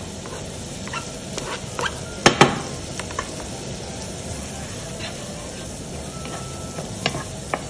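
Chopped garlic and onion sizzling in butter and olive oil in a frying pan, stirred with a wooden spatula that clicks and scrapes against the pan. Two sharp knocks a little over two seconds in.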